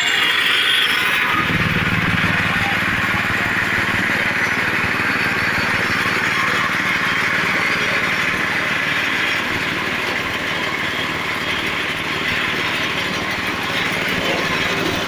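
Feed milling machine driven by a small engine, running steadily with a continuous mechanical noise; a deeper hum comes in about a second in.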